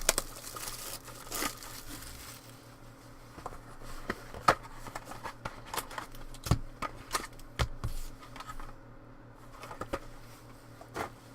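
A sealed box of trading cards being opened by hand: crinkling and tearing of plastic wrap and cardboard, then scattered clicks and taps as the box and packs are handled.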